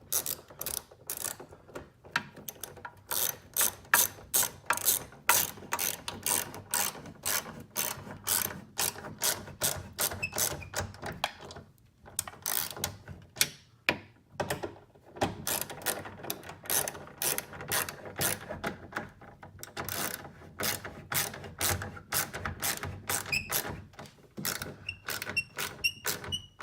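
Hand ratchet wrench clicking in quick repeated strokes, with a couple of brief pauses about halfway through, as it runs the side mirror's mounting bolts down snug.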